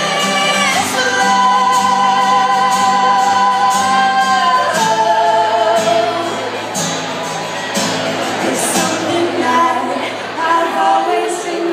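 Female voices singing an original song. Near the start they hold one note with vibrato for about four seconds, then move down in pitch.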